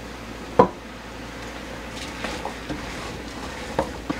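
A red silicone spatula knocking once against a stainless steel pot about half a second in, then a few light clicks as shrimp and cut vegetables are stirred, over a steady low sizzle from the shrimp frying in oil.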